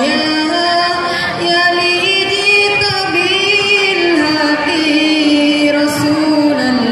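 A woman's solo voice singing sholawat, the Islamic devotional chant in praise of the Prophet, into a microphone. She holds long notes that step up and down, with wavering ornaments on them.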